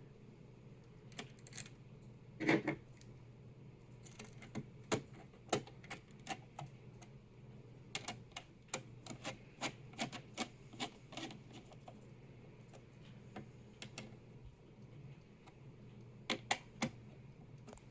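Irregular light clicks and taps of small computer parts and screws being handled on a table, with a louder knock about two and a half seconds in, a quick run of clicks a few seconds later, and a few sharp clicks near the end.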